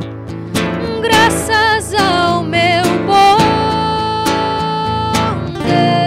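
A woman singing a slow, wavering melody with vibrato over a nylon-string classical guitar. Her line begins about a second in after a struck chord, holds one long note through the middle, and a new phrase starts near the end.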